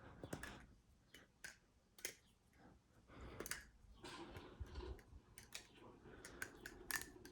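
Balisong being flipped: irregular sharp metallic clicks and clacks as the handles swing and snap shut against the blade and tang.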